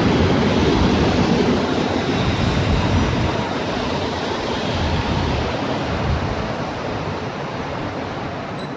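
Passenger coaches of a departing train rolling past on the rails, a steady rumble that fades away as the last coach goes by.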